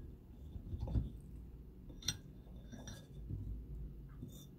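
Metal fork cutting through cherry pie and tapping a ceramic plate, with one sharp ringing clink about two seconds in and softer dull knocks and scraping between.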